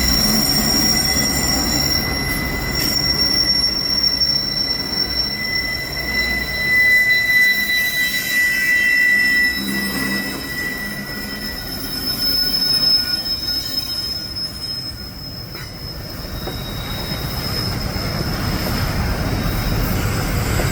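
Heavy grain train's wheels squealing against the rails as it crawls up a steep, wet grade: several steady high-pitched squeal tones, strongest about a third of the way in, over a continuous low rumble of the wagons.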